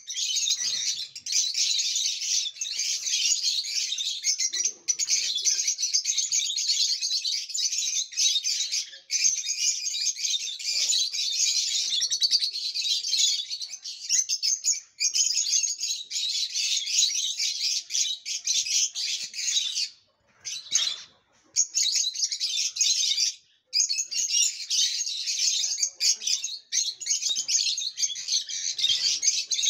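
A flock of lutino and Fisher's lovebirds chattering in a dense, unbroken stream of shrill chirps, with two short lulls about two-thirds of the way through.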